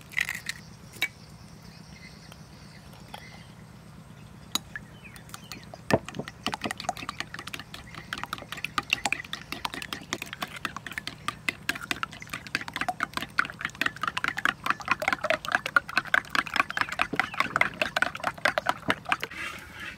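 Raw eggs being beaten with a metal spoon in a ceramic bowl: a few single taps, then from about six seconds in a fast, continuous clicking of the spoon against the bowl through the liquid egg, getting louder and stopping shortly before the end.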